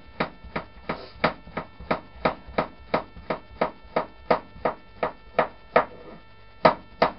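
Kitchen knife slicing a courgette into thin rounds, its blade knocking on a plastic chopping board about three times a second, with a brief pause near six seconds before two more cuts.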